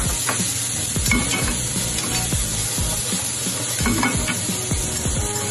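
Strips of luncheon meat sizzling in a frying pan over a gas flame as the pan is shaken, with light irregular knocks and scrapes.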